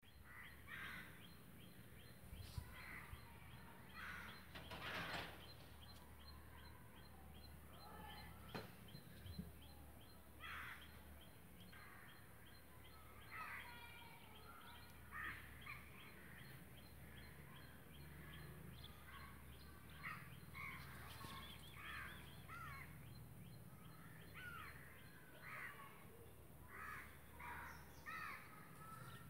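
Birds calling on and off in short, scattered calls, with a louder call about five seconds in.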